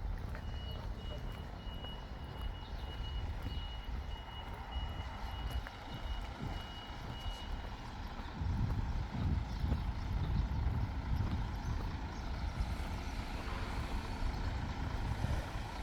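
A high electronic tone of the kind a vehicle's reversing alarm makes, sounding for about seven seconds and then stopping, over a low rumble that grows louder about eight seconds in.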